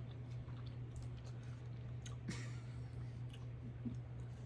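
A person chewing a soft, chewy mochi candy with the mouth closed: faint scattered wet mouth clicks and smacks over a steady low hum.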